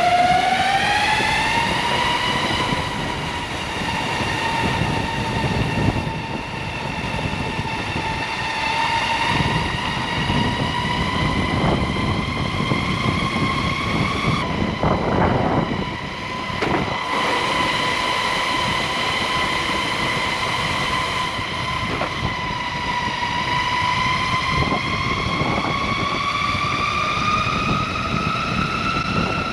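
Electric skateboard motors whining under way, a high steady tone with overtones that climbs as the board speeds up at the start, holds level, then climbs again near the end. Under it is a rough rolling and rushing noise from the wheels on the path and the wind.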